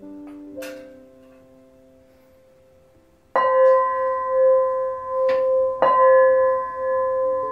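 A metal bell, singing-bowl-like, struck with a stick three times, about three, five and six seconds in, each strike ringing on in a long, wavering hum. Before that, a few softer struck tones fade away.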